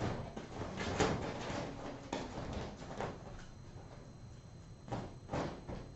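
Kittens at play: irregular knocks, bumps and rustles, roughly one a second, from toys and small bodies hitting surfaces.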